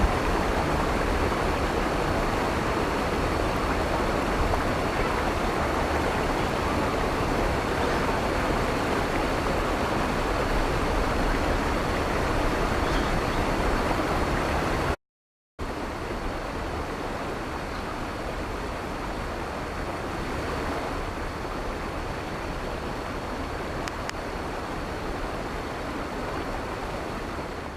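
Steady rushing of a waterfall's falling water into its pool. It breaks off for a moment about halfway through and resumes a little quieter.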